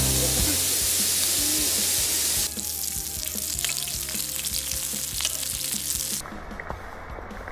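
Meat sizzling on a hot griddle pan. About two and a half seconds in it drops to a quieter sizzle, with light clicks of metal tongs against the pan as the pieces are turned.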